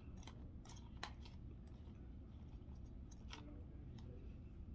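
Faint, scattered clicks and ticks of eating: a plastic fork picking at sausage balls, over a low steady room hum.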